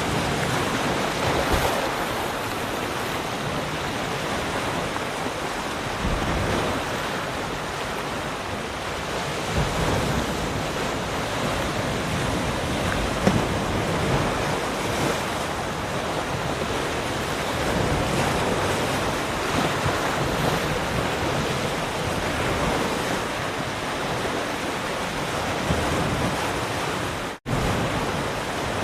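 Ocean surf: waves breaking and washing in a continuous rush that swells and eases every few seconds. There is a brief, sudden dropout near the end.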